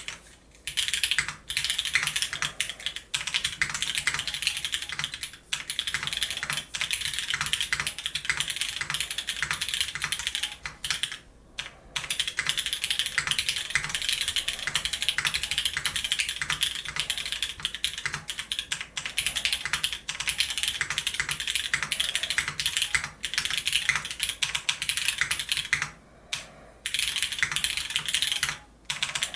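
Clacky keystrokes from an Odyssey TKL custom mechanical keyboard, typed in fast continuous runs with a few short pauses.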